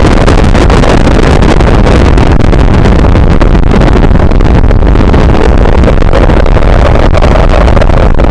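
Cartoon explosion sound effect: a loud, harsh, unbroken rumbling blast noise, heaviest in the low end.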